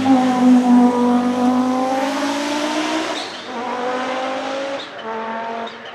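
Turbocharged 2.2-litre five-cylinder engine of a 1989 Audi 90 quattro IMSA GTO race car running hard under load. Its note breaks off briefly twice, and each time comes back at a lower pitch before rising again.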